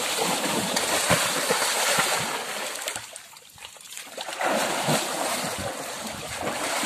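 Water splashing and sloshing as a person wades and lunges through a stream after a water monitor, in two spells with a lull about halfway.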